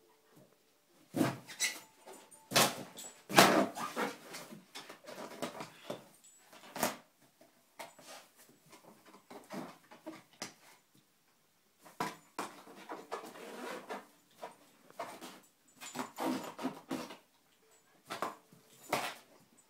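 A dog playing with an inflated rubber balloon, knocking and rubbing it with its nose and mouth in irregular spells, the sharpest knocks in the first few seconds.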